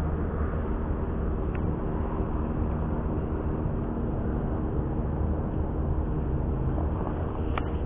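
Steady low engine drone with a constant hum, unchanging throughout, and a faint click near the end.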